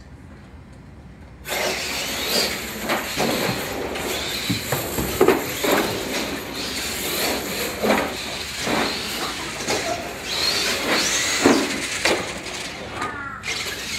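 Radio-controlled monster trucks racing: motors whining up and down in pitch, with repeated knocks and clatter from the trucks running over the track. It starts suddenly about a second and a half in.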